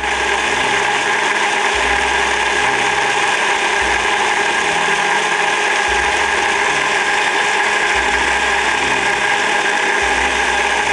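Electric mixer grinder (mixie) running steadily at full speed, grinding pears with green tomato puree into a sauce.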